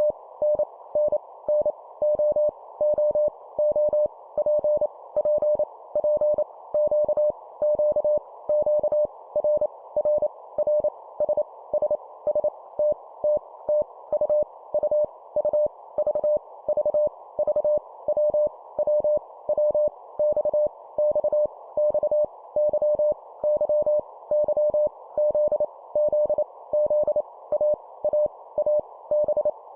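Morse code (CW) at 25 words per minute: a single mid-pitched tone keyed on and off in quick dots and dashes, each letter sent three times. A steady band of hiss, like receiver noise, sits under the tone between the elements.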